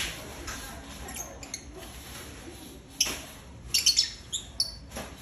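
Lovebirds of a mating pair giving short, sharp chirps, a quick cluster of several about three to four and a half seconds in, some sliding down in pitch.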